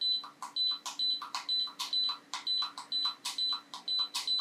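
iRepair MS1 desoldering platform beeping with each button press, a quick run of short high beeps with clicks at about three to four a second, each press raising the temperature setting by 10 degrees. A faint steady hum underneath.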